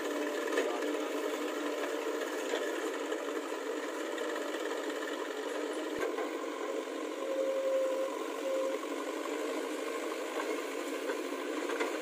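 Diesel engines of a backhoe loader and a farm tractor running steadily at work, a thin mechanical chatter with no deep rumble.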